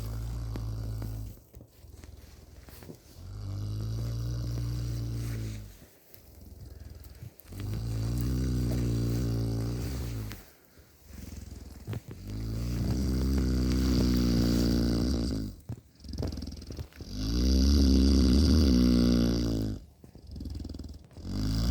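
A resting cow snoring: a long, low, droning sound on each breath, six times about four seconds apart, getting louder toward the end.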